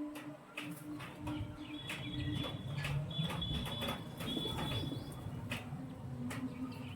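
Pigeons cooing, with bird chirps and a high held whistle-like tone in short stretches, among many scattered sharp clicks.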